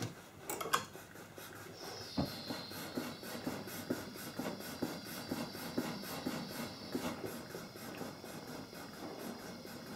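Small gas soldering torch flame burning with a steady hiss and a high whistle, which start about two seconds in; a couple of sharp clicks come just before.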